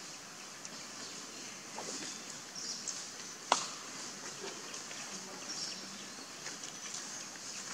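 Outdoor background with scattered faint high chirps and one sharp click about three and a half seconds in.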